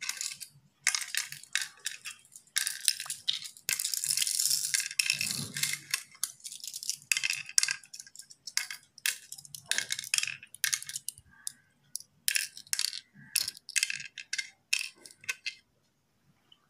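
Cowrie shells clicking and clattering on a wooden pallanguzhi board as they are scooped up by hand and dropped into its pits, in quick runs of clicks with short pauses. They stop about a second before the end.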